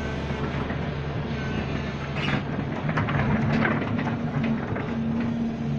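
Diesel engine of a Doosan Solar 140W wheeled excavator running with a steady low hum; a higher steady tone joins about halfway. Scattered light clicks and knocks sound over it.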